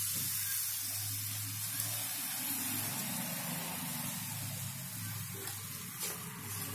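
A steady hiss over a low, even hum, with a steel spoon faintly stirring a dry besan and coriander masala in a nonstick frying pan.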